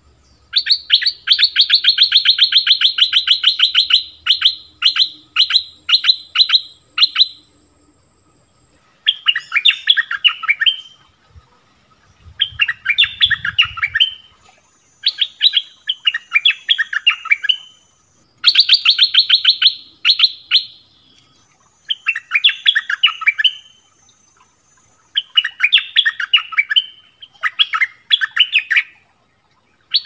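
Stripe-throated bulbul song: a long, fast chattering run of notes near the start, followed by a series of short, bubbly phrases of quick notes separated by brief pauses. It is a loud, repeated decoy song of the kind played to lure wild bulbuls.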